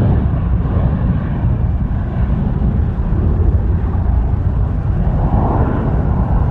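Jet airliner engines making a steady, loud rumble, with a slight swell about five seconds in.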